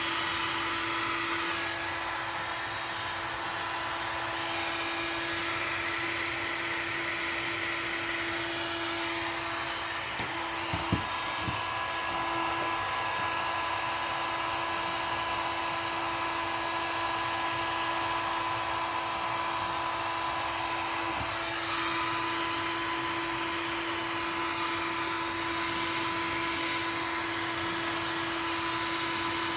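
Electric heat gun running steadily, a rush of blown air with a constant whining tone, as it softens plastic. A couple of faint knocks about eleven seconds in.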